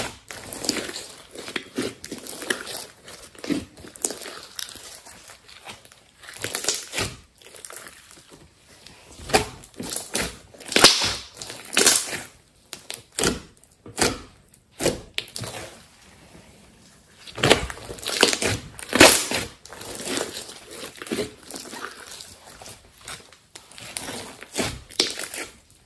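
Hands squeezing, kneading and folding a large batch of thick slime, giving irregular squishing and crackling sounds in bursts, with a few louder crackles around the middle and about two-thirds of the way through.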